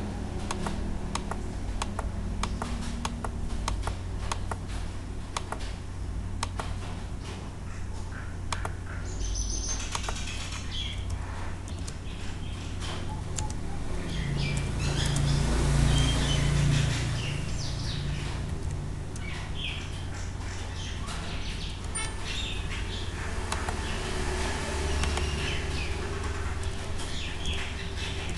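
Computer keyboard typing and mouse clicks over a steady low hum, with birds chirping in the background. A louder low rumble swells and fades about halfway through.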